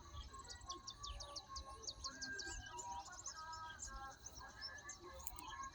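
Several birds calling at once, a mix of quick runs of high chirps and short held whistled notes, over a steady thin high tone.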